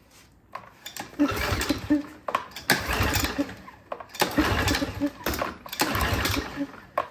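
Pressure washer's small gas engine being pull-started four times, each pull turning it over with a rasping whir that never catches. It won't start; the spark plug turned out to be fouled with oil.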